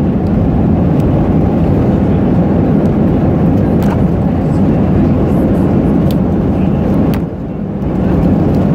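Airliner cabin noise: a loud, steady, low rumble that dips briefly about seven seconds in. A few faint clicks from the plastic wrapper being handled sit on top of it.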